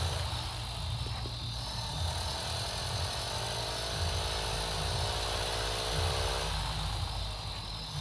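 Vehicle engine running as it drives: a steady low drone, with a faint tone that rises slowly in pitch through the middle.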